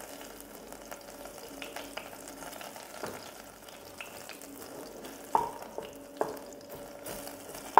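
Crushed garlic cloves sizzling in hot oil with mustard seeds in a non-stick kadai, stirred with a wooden spatula. The steady fizz is broken by scattered short, sharp ticks.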